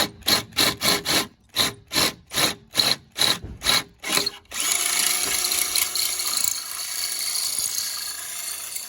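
Power drill with a 23/64-inch bit boring through thin aluminum. It starts in short trigger bursts, about three a second, then from about four and a half seconds in runs steadily through the metal, easing off near the end as the hole is finished.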